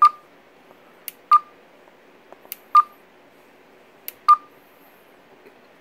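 Stryker SR-655HP CB radio's button beeps: four short, single-pitched beeps about a second and a half apart, each with a sharp click of the button, as the display colour setting is stepped through.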